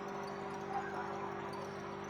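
Quiet background music: a steady held drone over an even hiss.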